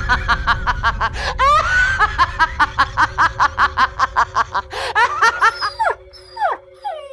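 A woman's long, theatrical villain's cackle, a rapid run of "ha-ha-ha" bursts about four to five a second, lasting most of six seconds. Near the end come a few short falling whines of a dog whimpering, over a steady music bed.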